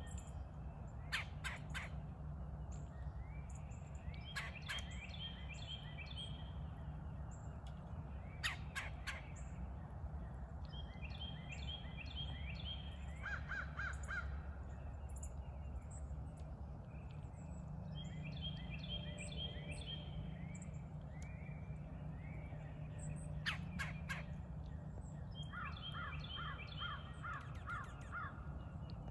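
Crows cawing in about five bouts of quick repeated calls, with a few sharp clicks between them. A steady low rumble runs underneath.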